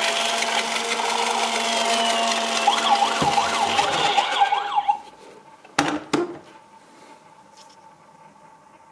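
Toy police car's electronic sound effects from its small built-in speaker: a whirring engine noise with a quick up-and-down siren wail, cutting off suddenly about five seconds in. Then two quick knocks.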